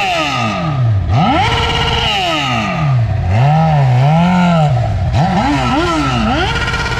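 Engines revving over and over, the pitch climbing and falling with each swing of the throttle, with more than one engine sounding at times.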